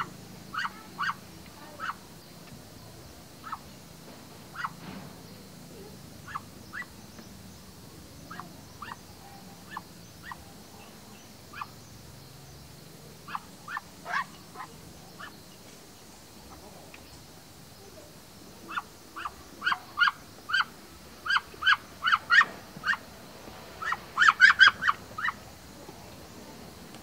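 A flock of domestic ducks quacking in short, repeated calls, at times several together. The calls come sparsely through the middle and grow busier in the last third, with a quick flurry of quacks near the end.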